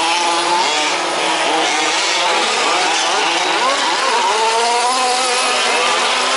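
Several 1/5-scale petrol remote-control trucks' two-stroke engines revving and easing off as they race, many overlapping pitches rising and falling.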